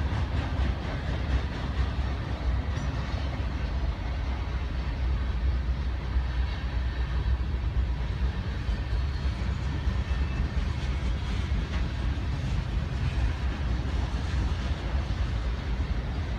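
Freight train of boxcars and refrigerated boxcars rolling past, a steady rumble of steel wheels on the rails.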